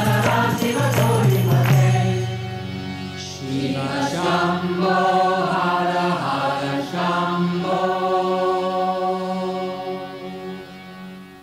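Background devotional chant music: sustained melody over a steady drone, fading out near the end.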